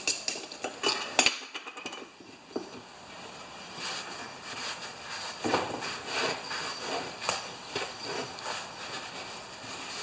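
Light clinks and knocks of a glass jar and its lid on a workbench, the sharpest about a second in. After that comes scuffing and rubbing as a rag and hands work over a small rubber lawnmower tire.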